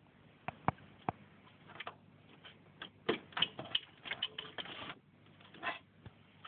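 Handling noise of computer hardware: a few sharp clicks, then a dense cluster of taps and rattles around the middle, and another short rattle near the end.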